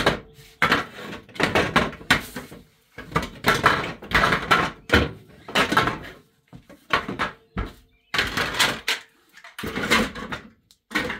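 Plastic sections of a cat exercise wheel being pried apart and handled: an irregular series of knocks, clacks and scrapes of hard plastic.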